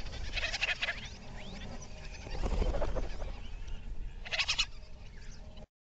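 Cartoon woodland ambience of bird chirps and small-animal chatter played backwards, with two bursts of rapid chattering, one about half a second in and one near the end, and the sound cuts off suddenly just before the end.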